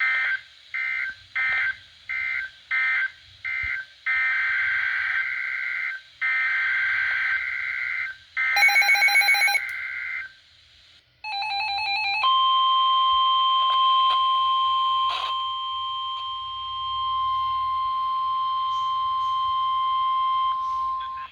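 Emergency weather alert tones: rasping two-pitch digital SAME header bursts, first short ones about twice a second and then longer ones. After a brief beeping, NOAA Weather Radio's steady 1050 Hz warning alarm tone is held for about nine seconds, announcing a severe thunderstorm warning, and cuts off just before the end.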